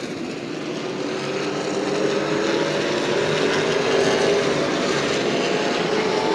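A pack of Pro Late Model race cars' V8 engines running at speed around the short-track oval, heard together as a steady, layered drone, with the engine pitch rising a little midway.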